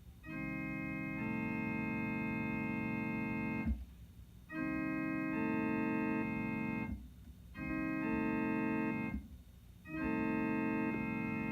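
Electronic keyboard playing an organ-toned chord that imitates a Leslie S3L three-chime train air horn. It sounds four times, long, long, short, long, the pattern of a grade-crossing signal.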